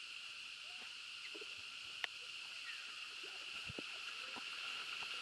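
Steady high drone of insects, with scattered faint short animal calls and a single sharp click about two seconds in.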